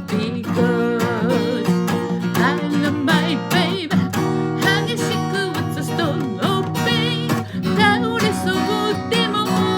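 Acoustic guitar strummed in chords under a singing voice holding wavering notes.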